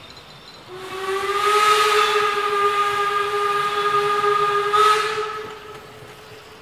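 Steam whistle of the Rügen narrow-gauge steam locomotive 99 4011-5 sounding one long blast of about five seconds as the train departs. The blast starts about a second in, with a rush of steam hiss at its start and again just before it stops.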